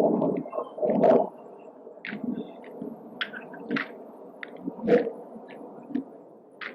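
Sharp, irregular clacks and slaps of drill rifles being spun, tossed, caught and slapped by hand during a precision rifle drill. Heavier thuds come at the start, about a second in, and about five seconds in.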